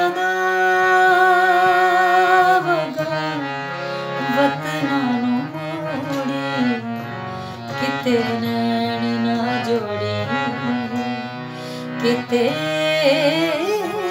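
A woman singing a Punjabi folk song over instrumental backing. She holds a long note with vibrato for the first couple of seconds, then the backing carries on with shorter sung phrases, and a wavering sung line returns near the end.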